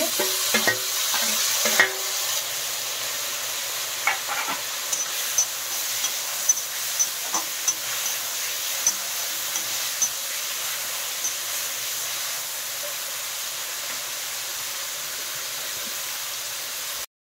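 Chopped tomatoes sizzling in hot mustard oil in a kadhai with frying onions, garlic and green chillies, while a slotted spatula scrapes and knocks against the pan now and then. Louder for the first two seconds as the tomatoes go in, then an even hiss with light crackles.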